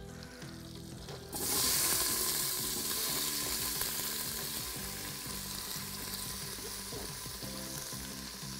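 Chopped onion and celery hitting hot butter and oil in an Instant Pot on its sauté setting, sizzling. The sizzle starts suddenly about a second in and then eases slightly as the vegetables settle.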